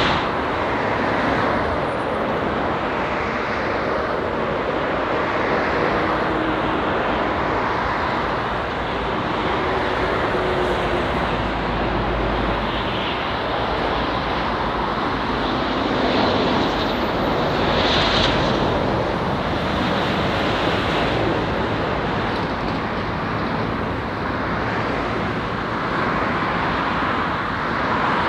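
Jet airliner landing, its engines making a steady rush of noise throughout.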